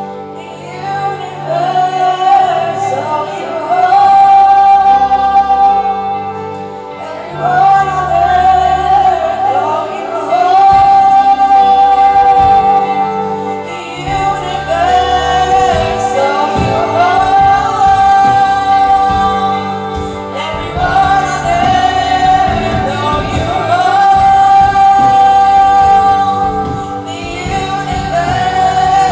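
Live worship band: a young woman singing lead into a microphone over electric guitars and a band, with backing singers. The drums come in harder about halfway through.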